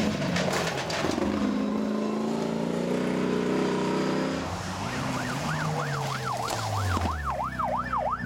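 Rally vehicle engines on a gravel stage, revving up and down as they pass at speed. From about halfway a siren starts wailing, rising and falling about twice a second, over the engine.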